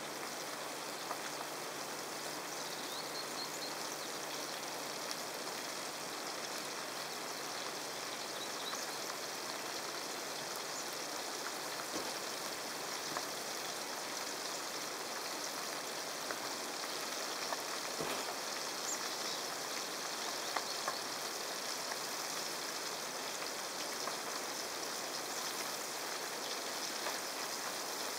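Trout frying in oil in a pan on a portable gas stove: a steady sizzle with a few small pops.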